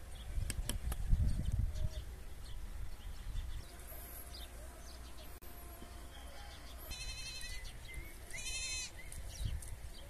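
A goat bleats twice in the second half, two short quavering calls, the second slightly longer. A dull low thump sounds about a second in, and there are light clicks in the first second.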